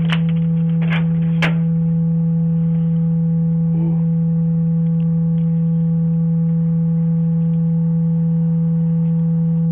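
A loud, steady, low electronic tone, held at one pitch without any change, with a few faint clicks in the first second and a half.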